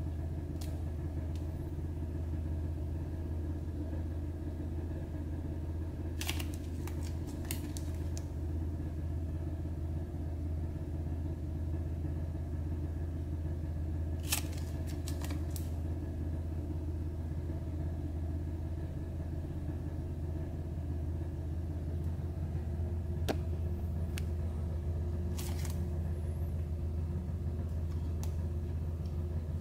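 A steady low hum runs without change, with a few short clicks and crackles of a plastic drink bottle being handled now and then, a cluster of them about six to eight seconds in and again about halfway through.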